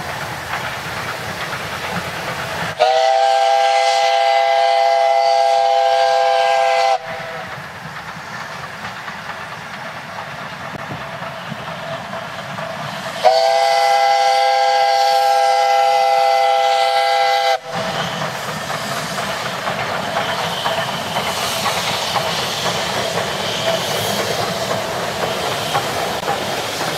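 Steam whistle of the Danish DSB class F steam locomotive 654 giving two long, steady blasts, each about four seconds, some ten seconds apart, over the noise of the train running along the track.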